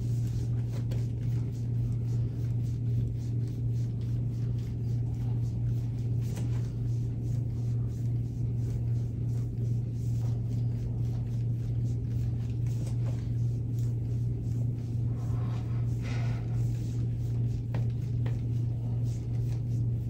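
Steady low hum, unchanging throughout, with a few faint soft clicks scattered over it.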